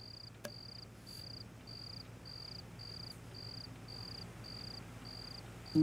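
A cricket chirping, one short high-pitched chirp repeated evenly about twice a second.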